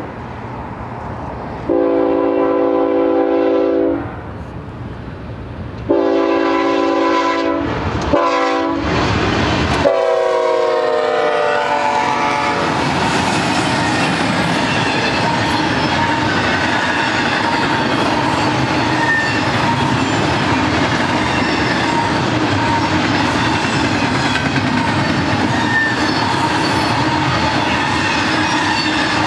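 A GE ES44DC diesel locomotive's air horn sounds two long blasts, a short one and a final long one whose pitch drops as the locomotive passes: the long-long-short-long grade-crossing signal. The steady noise and clatter of double-stack intermodal cars rolling on the rails follows.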